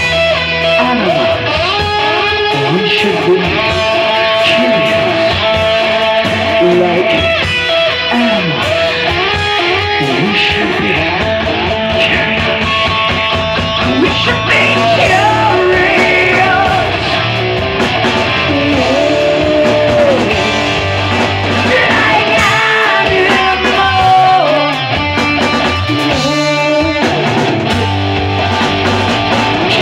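Rock music with electric guitar to the fore and a voice singing, playing loudly and steadily.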